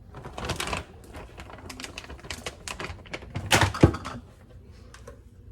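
Kitchen handling sounds while filling and rolling enchiladas: a brief rustle, a run of light clicks and taps from utensils and dishes, and a louder knock just before four seconds.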